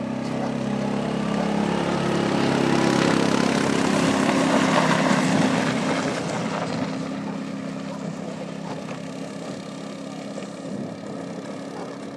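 Side-by-side UTV engine running as it drives past towing a boat hull over dirt, with the scraping of the hull sliding across the ground loudest as it passes close. The sound builds, peaks around the middle, then fades as both move away.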